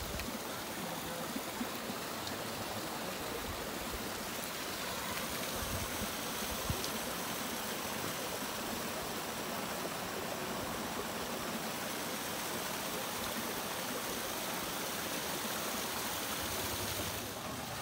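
Steady rush of water: hot-spring water pouring over rocks into a soaking pool.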